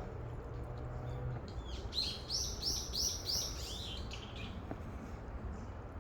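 A songbird singing one phrase of about six quick, repeated notes, each a high note that arches and falls, about three a second, over a steady low background rumble.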